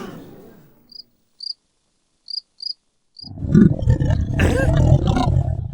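Cartoon sound effects: a trailing music note dies away, then five short, high cricket chirps sound in near silence. About three seconds in, a loud, low rumbling takes over.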